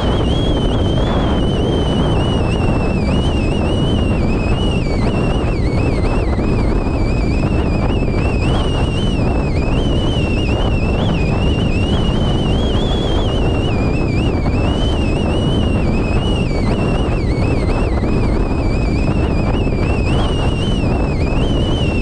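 Storm-force wind on an exposed mountain summit battering the microphone with a constant heavy rumble, with a high whistling tone above it that wavers up and down with the gusts.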